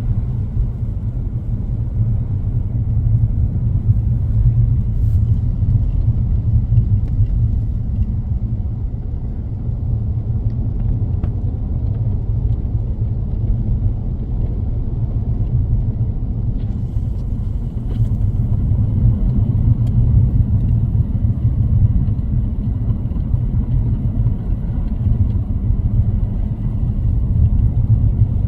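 Low, steady rumble of a car driving, with road and engine noise continuous and fairly loud.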